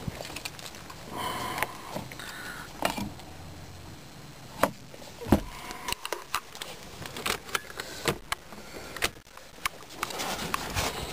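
Scattered clicks, taps and light knocks, irregular and unevenly spaced, with a couple of sharper knocks about halfway through: handling noise of someone moving around a parked car's open passenger door and dashboard.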